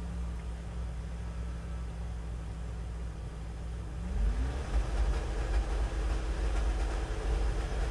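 Car engine idling, then revved up about four seconds in and held at higher revs with an uneven, pulsing low rumble. It is running with an intermittent misfire that new spark plugs have not cured; the owner finds it even worse than before.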